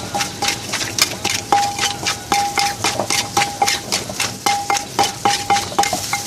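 Pestle pounding green papaya salad in a mortar while it is tossed with a spoon: quick, even knocks about four a second, with a short ringing clink among them.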